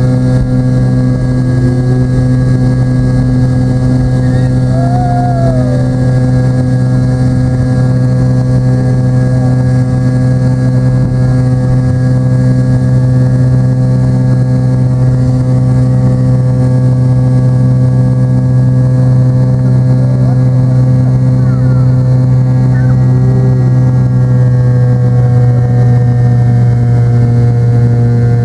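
McDonnell Douglas MD-83's rear-mounted Pratt & Whitney JT8D turbofans at takeoff power as the airliner lifts off and climbs, heard inside the cabin. It is a loud, steady drone with several steady tones. One tone sags slightly in pitch near the end.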